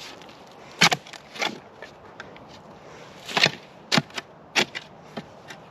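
Shovel striking and scraping into clay-like soil and roots around a stump: about six sharp strikes, spaced unevenly.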